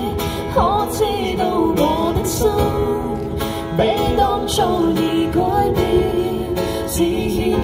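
Acoustic guitar played live under a singer's voice, a Cantonese pop ballad sung with sliding, held notes over the guitar's steady strumming.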